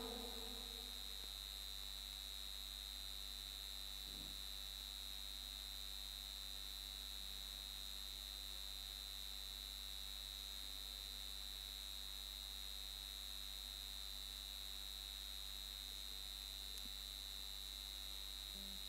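Steady electrical mains hum with a constant high-pitched whine above it, unchanging throughout: noise of the recording or sound-system chain with no other sound.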